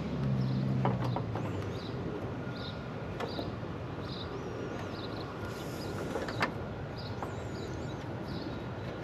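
Several sharp clicks from the AC condenser unit's low-voltage controls, the contactor switching on its own with nobody touching the wiring. The loudest click comes about six and a half seconds in. Something in the low-voltage circuit is making it click.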